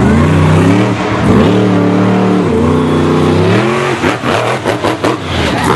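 Monster truck engine revving hard: the revs climb, hold high, dip and climb again as the truck charges and launches into a jump over a row of cars. Near the end the engine note gives way to a rapid, uneven run of knocks and bangs.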